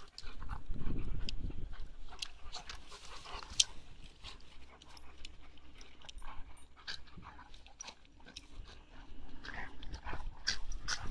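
Dogs play-fighting, a German shepherd and two smaller dogs chasing and tussling: irregular dog noises and scuffles, busiest in the first second or so, with one sharp click a few seconds in.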